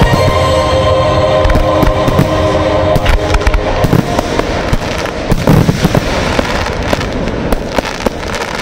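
Fireworks display: many sharp bangs and crackles of aerial fireworks, over accompanying music that fades out about halfway through.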